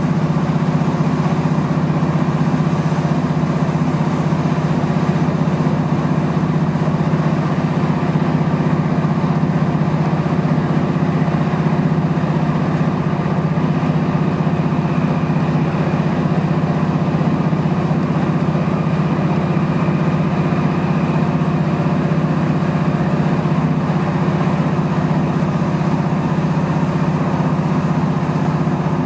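Diesel train's underfloor engine running at a steady drone, heard from inside the carriage as the train travels. A faint high whine comes in about halfway through.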